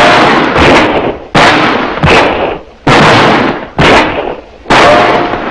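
Revolver shots fired in quick succession, about six of them, roughly one every 0.8 seconds, each dying away in a long echoing tail.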